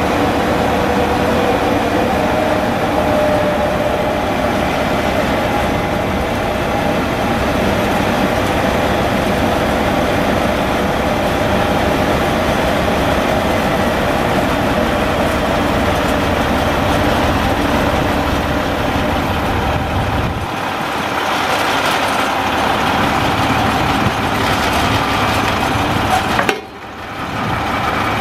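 Vactor 2110 combination sewer truck running under hydraulic load as its vacuum boom is moved from the control panel: a loud, steady engine drone with a whine over it. The sound dips briefly a little before the end and picks up again.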